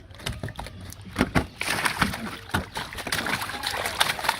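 Water splashing and sloshing in irregular strokes, louder from about a second in.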